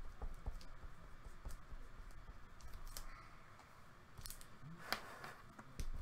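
Quiet clicks and light scraping of trading cards and plastic card holders being handled on a desk, with two sharper clicks about four and five seconds in.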